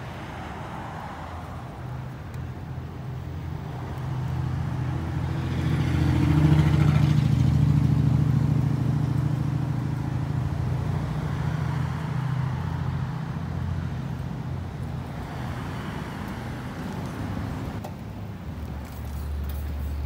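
Low, steady engine note of a slow-moving car. It swells to its loudest about a third of the way in, then slowly fades. A deeper engine note comes in near the end.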